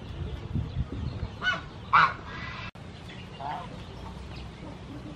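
Geese honking in a few short calls, the loudest about two seconds in.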